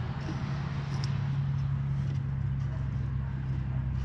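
A steady low mechanical hum, like a motor or engine running, that grows slightly louder over the few seconds, with a few faint light clicks on top.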